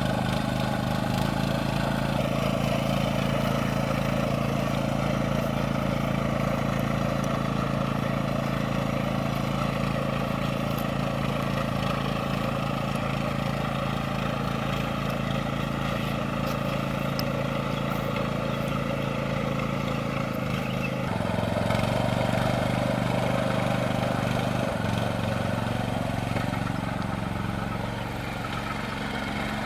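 Engine of a rice transplanter running steadily, its pitch dropping about two-thirds of the way through and then slowly rising again.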